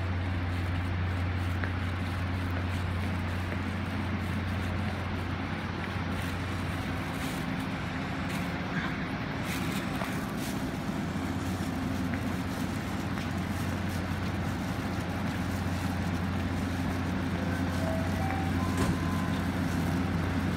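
Taiwan Railway DR3000-series diesel multiple unit pulling slowly into the platform, its diesel engines running with a steady low drone.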